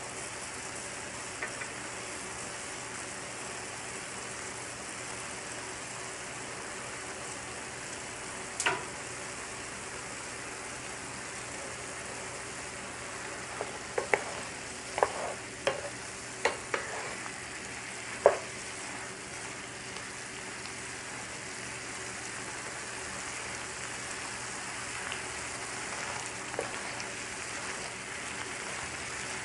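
Shrimp in coconut-water marinade simmering and sizzling steadily in a nonstick frying pan on high heat as the liquid reduces. A single knock about a third of the way in, then a run of sharp clicks and knocks around the middle as a wooden spatula stirs the shrimp against the pan.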